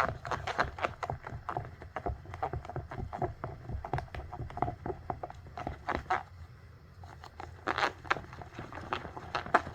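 Slime being squished and worked by hand: a dense, irregular run of sticky clicks and wet pops, easing off briefly about six seconds in before picking up again.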